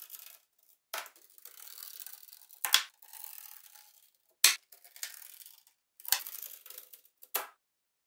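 Small silver magnetic balls snapping together as strips of them are laid onto a slab of the same balls: about four sharp clicks, with a soft rattling scrape of the balls rolling and settling in between.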